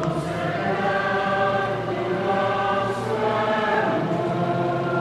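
A choir singing a slow hymn in long held notes, several voices together, with a change of chord about halfway through.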